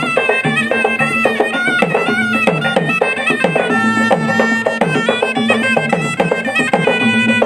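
Tunrung pamanca ensemble playing: gendang drums beating a fast, dense rhythm, many strokes sliding down in pitch, under a shrill double-reed pui-pui melody and a steady low drone.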